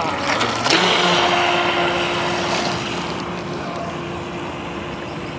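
Small RC boat's brushed electric motor whining at a steady pitch over a hiss of water spray, with a sharp hit under a second in. The sound slowly fades as the boat runs away across the river.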